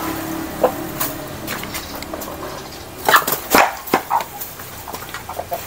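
An animal giving several short, loud calls in quick succession about three seconds in.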